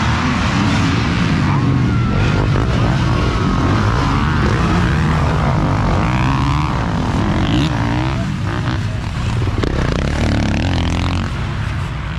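Many dirt bike engines revving hard together as a racing pack accelerates away. About halfway through, bikes passing close by rev up with rising pitch.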